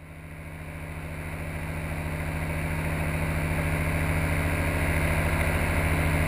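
Paramotor engine and propeller running steadily in flight, a low pulsing drone that fades in from silence and grows louder.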